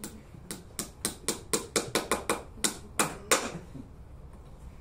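Farrier's hammer driving a horseshoe nail into a horse's hoof: a quick run of about a dozen sharp metal taps that come faster and end in two harder blows about three and a half seconds in.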